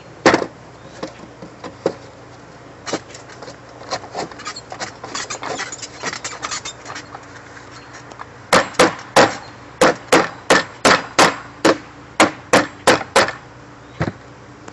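Hammer striking wood: a single knock, some lighter tapping, then a steady run of about a dozen and a half sharp blows at roughly three a second.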